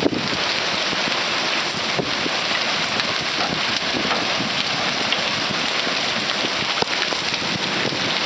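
Heavy rain pouring steadily during a violent thunderstorm, with a few sharper drop hits standing out from the steady rush.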